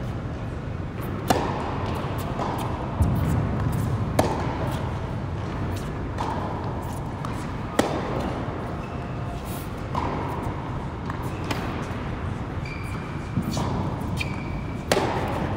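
A tennis rally on an indoor hard court: about ten sharp pops as the ball is struck by racket strings and bounces on the court, one every second or two, each echoing briefly in the large hall.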